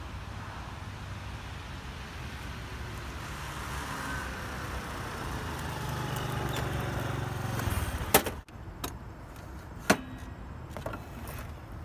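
Honda Elite 150 scooter riding up, its engine growing louder, then cutting off suddenly about eight seconds in, followed by a few sharp clicks and knocks.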